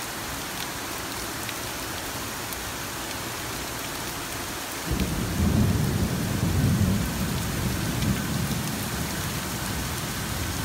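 Steady rain hissing, with a low rumble of thunder that starts about five seconds in, swells for a couple of seconds and then fades.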